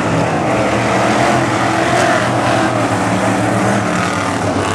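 A field of dirt-track sportsman coupe race cars running at speed, several engines at once with their pitches overlapping into a loud, steady drone.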